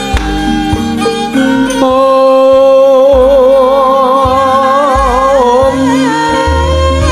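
Javanese gamelan ensemble playing, its struck metal keys and drums sounding alone at first; about two seconds in a female singer (sinden) comes in over it with long, wavering held notes.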